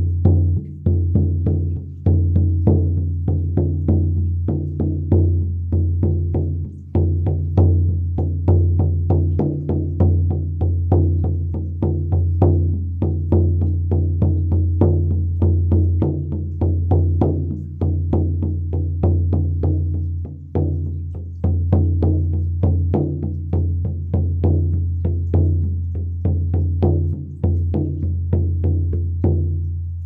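Horse-hide shamanic frame drum on a 15-inch ash frame, beaten with a beater in a steady, even rhythm. Each stroke gives a sharp attack, and a deep low boom rings on continuously between the beats.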